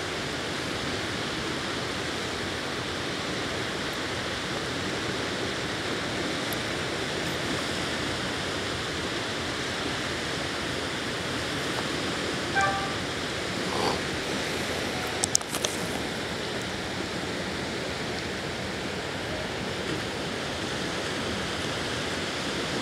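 Steady rushing noise of wind and water over an open river. About halfway through comes a brief pitched call, and shortly after it a few sharp clicks.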